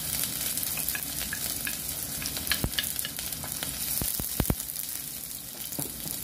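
Minced garlic sizzling in hot cooking oil in a wok. A wooden spatula stirs it, tapping and scraping against the pan a few times midway.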